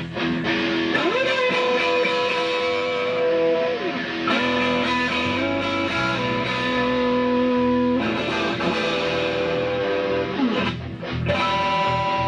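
Amplified electric guitar playing a slow blues line for a sound check: long held notes, several bent up into pitch, in about three phrases.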